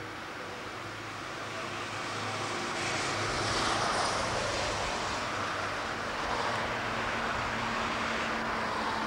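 Street traffic: a motor vehicle passing close by, its rushing noise swelling about three to four seconds in and staying loud.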